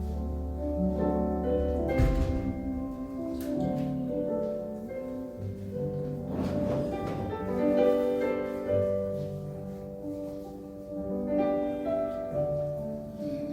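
Slow hymn played on an electronic keyboard: sustained chords under a melody line, with a deep held bass note that gives way to a chord change about two seconds in.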